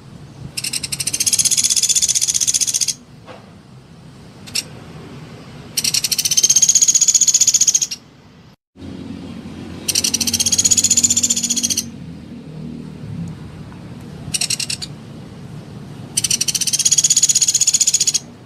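Sunda pygmy woodpecker (pelatuk beras) calling in rapid, high-pitched rattling trills: four trills of about two seconds each, each rising a little then falling, with two short bursts between.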